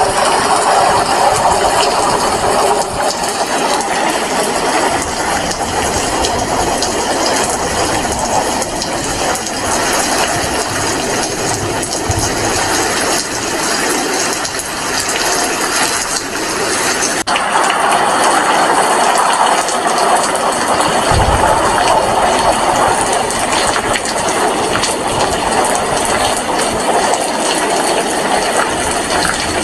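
Heavy rain falling steadily in a continuous dense hiss, the sound changing character abruptly about halfway through.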